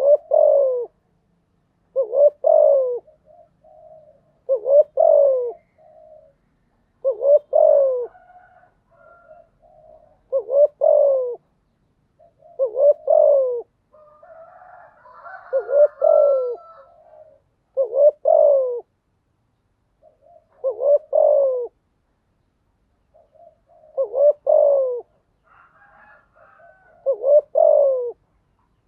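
Spotted dove cooing: a loud phrase of two or three coos repeated about every two and a half seconds, with softer low notes in between.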